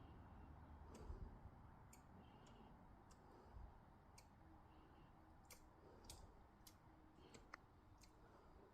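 Squirrel climbing up and down a tree, making faint, irregular sharp clicks with a few short squeaks between them.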